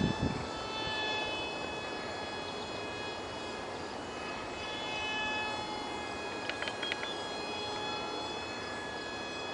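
High, steady whine of the ultra-micro RC foam jet's 8 mm direct-drive motor and propeller in flight, its pitch shifting slightly up and down. There is a short low thump at the very start and a few faint ticks about seven seconds in.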